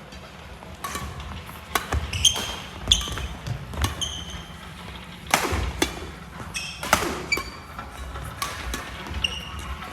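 Badminton rally on an indoor court: sharp racket strikes on the shuttlecock about once a second, sneakers squeaking briefly on the wooden floor, and thudding footsteps.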